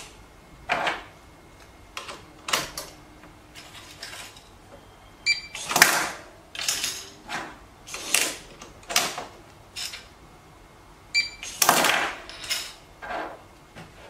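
Clicks and knocks of a small electronic cabinet lock and its bolt being handled and pressed together, with two short electronic beeps from the lock, about five seconds in and again about eleven seconds in, as it reads a key tag and unlocks.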